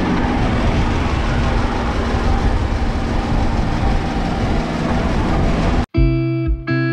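Engine and road noise heard from inside a 4WD's cabin as it drives along a sandy track, a steady rumble. About six seconds in it cuts off abruptly and guitar music begins.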